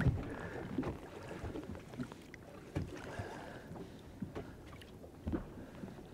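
Faint water sloshing and small splashes against a boat's side as a large snapper is held in the water to revive it before release, with a few light knocks.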